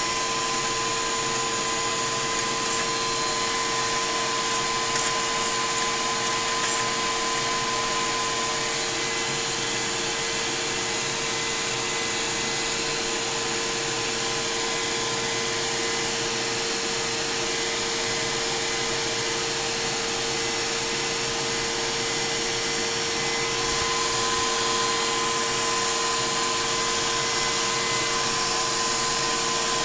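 Lego model steam engine with Brown valve gear running: a steady mechanical whir with a constant humming tone and no separate knocks.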